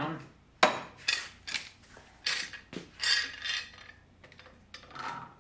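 Metal bar clamp being slid into place and tightened on a wooden workpiece: a series of irregular clicks, knocks and metallic rattles, with a last one near the end.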